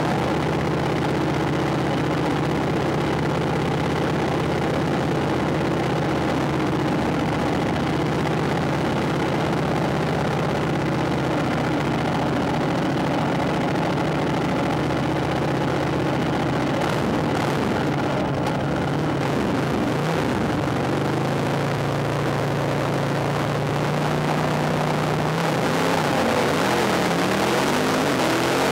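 Racing motorcycle engine heard from on board, running at a steady note with rushing wind noise. In the last few seconds the engine note climbs as the bike accelerates hard.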